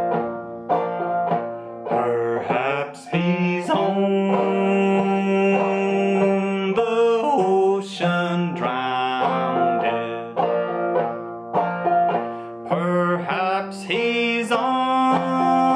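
Banjo played clawhammer style in double C tuning lowered a full step (F–A♯–F–A♯–C), a steady run of plucked and brushed notes, with a man singing long, held melody lines over it.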